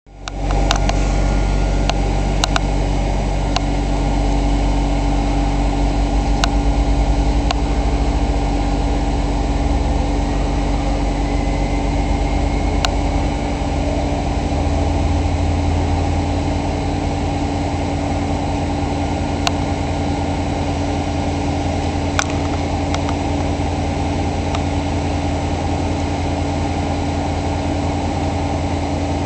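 Diesel train engine idling steadily at a standstill, a low hum with a steady droning tone over it. A few faint sharp clicks are scattered through it.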